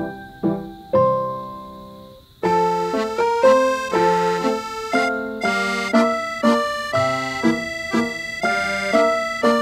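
Light instrumental background music. A few plucked keyboard notes fade away, then about two and a half seconds in a fuller section starts, with a sustained melody over steady rhythmic notes.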